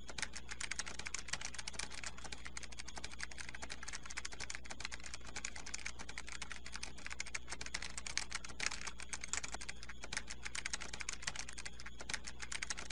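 Rapid, continuous typing on a computer keyboard: an unbroken stream of key clicks over a faint low hum.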